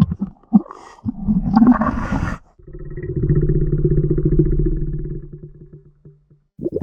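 Designed creature vocalisation for an amphibian-man monster. It opens with a few short clicks and grunts and a rough snarl about a second in, then runs into a long, low growl with a fast rattle that fades out near the end.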